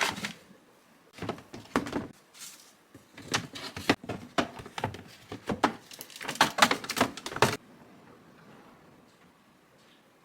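Irregular clicks, knocks and rustling from household items and containers being handled, stopping about seven and a half seconds in.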